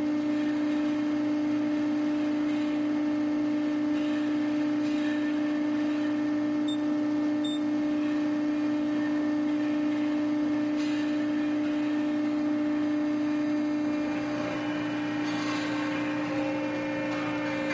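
A 175-ton Accurpress CNC hydraulic press brake running with a steady, pitched hum while its CNC back gauge calibrates.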